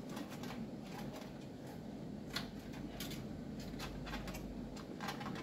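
Scattered small clicks and rustles of hands handling cables and connectors inside a mini-PC case, over a faint steady low hum.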